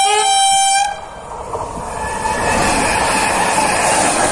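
Electric multiple unit sounds one short horn blast, about a second long, then passes close by with a building rush of wheels on rails.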